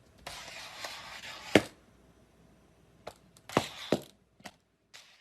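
A series of sharp knocks or taps, the loudest about a second and a half in, after about a second of rustling noise; four more lighter knocks follow from about three seconds in.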